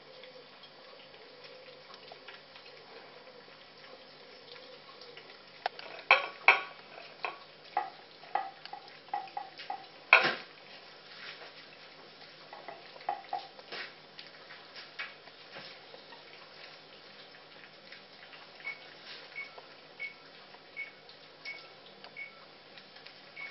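Puppies eating cat food from a dish: scattered clinks and knocks of the dish, busiest in the middle with one sharp clatter about ten seconds in, then a run of small light ticks near the end.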